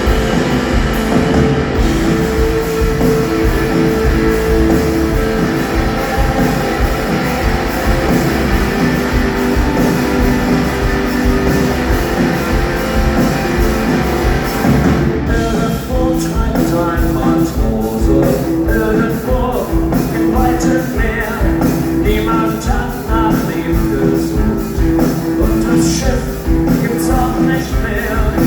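Live rock band playing with electric guitars, drums and singing. About halfway through, the dense wall of sound thins into a sparser passage with held notes.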